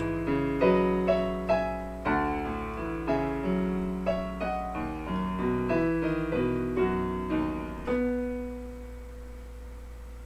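Digital keyboard on its piano voice playing a nocturne: struck notes and chords that ring over one another, ending about eight seconds in on a held note that fades away. A steady low hum runs underneath.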